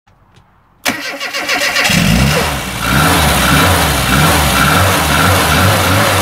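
Car engine starting: a click about a second in, a second or so of cranking, then the engine catches and runs, its pitch rising and falling in a steady rhythm.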